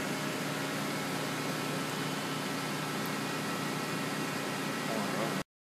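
Mori-Seiki SL-15 CNC lathe running under power: a steady hum and hiss with a few faint steady tones, cutting off suddenly near the end.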